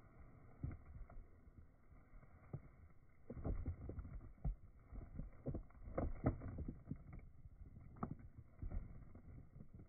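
Rhodesian ridgeback chewing and crunching dog treats from a snack bag, an irregular run of short crunches and mouth clicks that comes thickest from about three and a half seconds in, over a low steady rumble.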